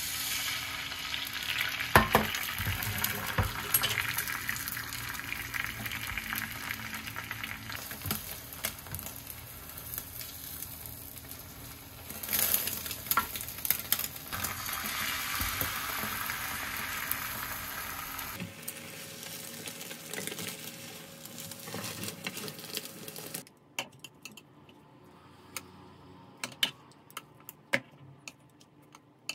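Food sizzling in a frying pan as it is stirred, a steady hiss broken by utensil clicks. About two-thirds through it drops away, leaving a quiet stretch of scattered sharp clicks.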